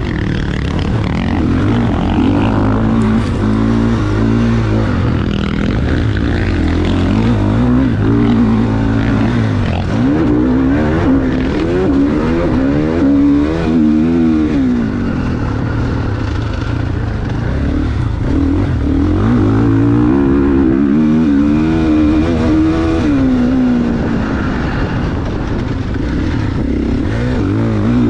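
GasGas MC 450F motocross bike's single-cylinder four-stroke engine under riding load, its pitch repeatedly rising and falling as the throttle is opened and closed through the track.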